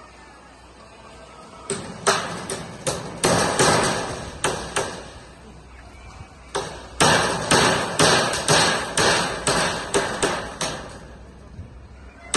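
Hammer driving nails, in two runs of quick, even blows about three a second, each blow ringing briefly, with a pause of a couple of seconds between the runs.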